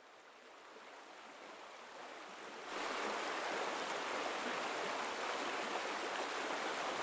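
Shallow mountain stream rushing and splashing over rocks as a steady wash of water noise. It swells in from faint and steps up louder about three seconds in.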